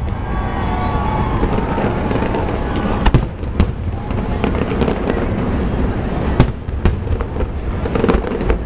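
Fireworks display: a continuous rumble of aerial shell bursts, with several sharp reports standing out, the loudest about six and a half seconds in.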